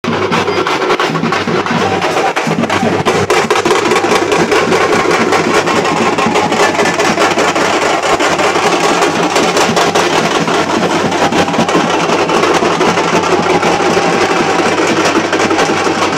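A troupe of folk drummers in a temple procession playing a fast, dense, continuous rhythm on several drums at once, loud throughout.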